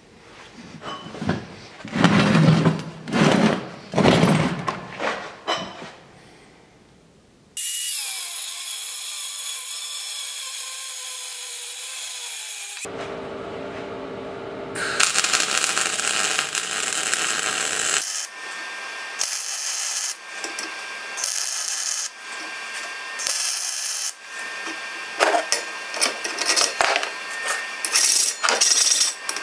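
Metalworking on steel: about six loud strokes about a second apart, then a power tool running steadily for about five seconds, its pitch sinking slightly. After a short quieter stretch the power tool runs in short bursts with pauses.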